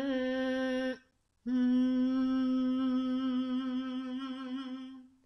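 A woman humming a closed-mouth 'M' on one steady note: a short hum, then a long held one that fades at the end. It is the nasal, forward-placed 'mask' resonance hum used as a singing exercise, felt vibrating at the sides of the nose.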